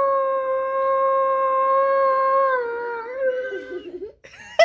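Recorded grey wolf howl played through a Google smart speaker: one long, steady howl that drops in pitch and wavers lower before it fades. A sharp click comes near the end.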